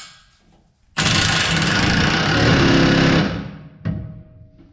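A cordless impact wrench runs a bolt tight on a snow plow mount bracket: a loud burst of rapid hammering that starts suddenly about a second in, lasts about two seconds and then fades out.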